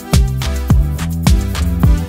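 Background music with a steady beat: a deep kick drum about twice a second over sustained bass notes.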